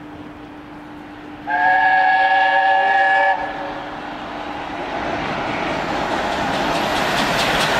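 LNER A4 Pacific steam locomotive sounding its chime whistle in one blast of almost two seconds, several notes at once. It is followed by the locomotive's rising rush as it approaches at speed, with wheels clattering over rail joints near the end.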